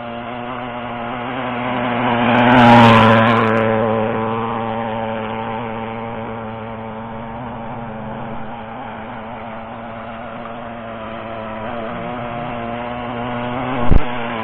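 O.S. FSα-56 four-stroke glow engine in an RC outrigger hydroplane running at full speed, set a little rich for the heat. It swells louder as the boat passes close about three seconds in, then settles back to a steady drone, with a brief thump just before the end.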